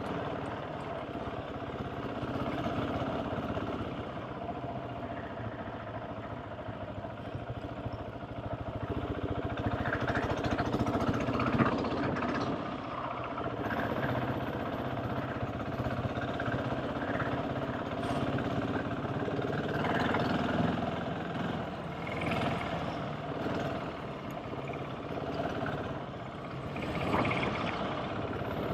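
GasGas ES700's single-cylinder engine running steadily, with scattered knocks and rattles.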